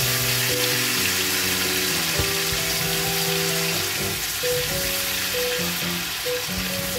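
Floured rabbit pieces sizzling in a frying pan of oil and freshly added cider on raised heat, a steady hiss, over background music of held notes.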